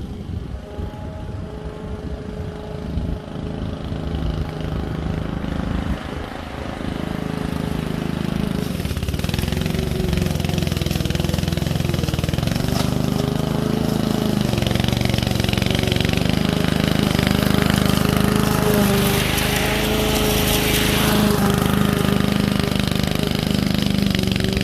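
Lawn mower engine running, uneven and quieter for the first six seconds or so, then louder and steady.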